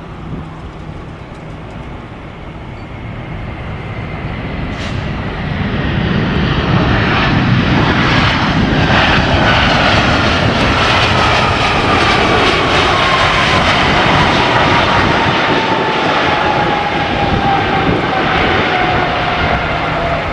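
Airbus A320-233 jet airliner passing close, its IAE V2500 turbofans roaring. The roar swells over the first six seconds, then holds loud while a thin engine whine slides steadily down in pitch as the aircraft goes by.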